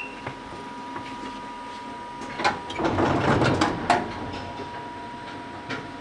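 Old electric train's sliding passenger doors closing at a station stop: a rush of air and rattling clicks from about two seconds in, ending in a knock near four seconds, over a steady hum from the car.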